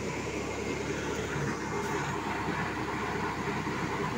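Steady engine rumble from sand-piling machinery running without pause.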